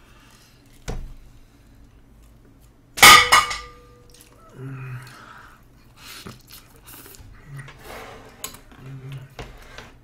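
Table-side eating noise: a sharp clink of a metal utensil against a dish about three seconds in, ringing on briefly, among smaller clicks of chopsticks and spoon on plates and bowls.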